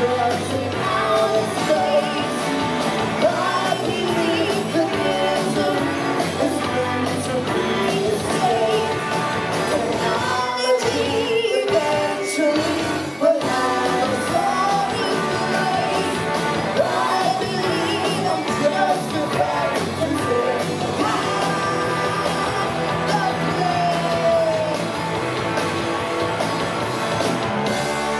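Live rock band playing: a singer over electric guitars, bass guitar and drums.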